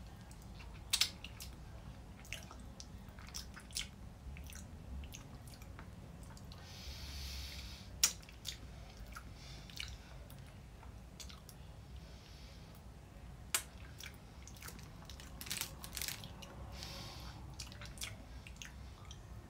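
Mouth sounds of a person sucking and biting on a hard lollipop ring candy: scattered wet clicks and smacks, a few sharper clicks standing out, and a brief hiss of breath about seven seconds in.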